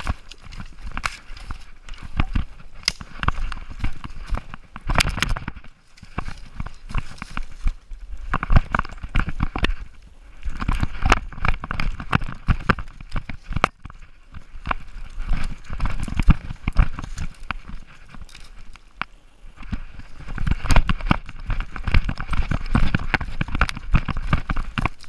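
A chocolate Labrador running on a forest trail, heard from a camera strapped to its body: rapid, irregular knocks and rustles of its footfalls and the jostling camera mount, with a few brief pauses.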